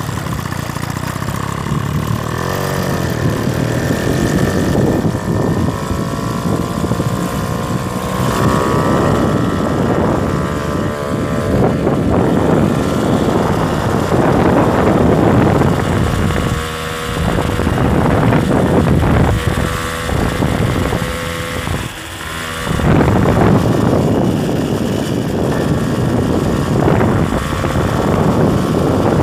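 Motorcycle engine running under way, its pitch rising and falling as the throttle opens and closes, with two brief drops in level around the middle and about two-thirds through.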